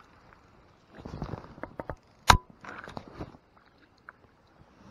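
Close handling of fishing gear, rustling and knocking, with one sharp loud click about two seconds in, as the landing net is taken in hand to land a hooked trout.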